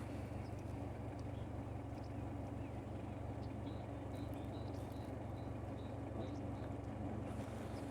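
Steady low hum of an idling car engine. A series of faint, high bird chirps comes in about midway through.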